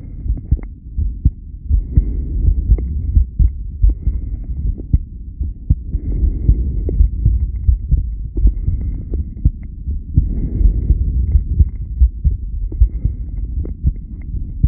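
Human heartbeat recorded during a long breath-hold: a run of short, low thumps over a low rumbling background.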